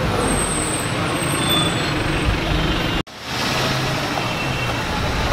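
Steady street and traffic noise around a roadside car wash, with a faint low engine hum. It cuts out abruptly for an instant about three seconds in, then resumes.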